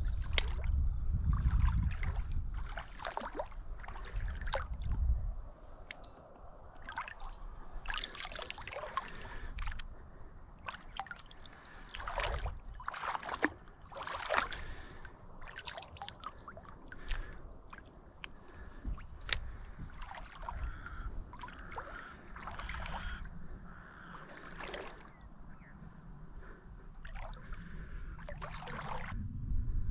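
Shallow water sloshing and splashing irregularly as a person wades through a muddy dam edge, feet stirring the silty bottom. A steady high-pitched whine runs underneath.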